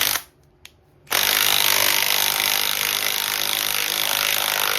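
A power tool running in two bursts on a cross-threaded transmission bolt. A brief burst cuts off just after the start, then from about a second in it runs steadily.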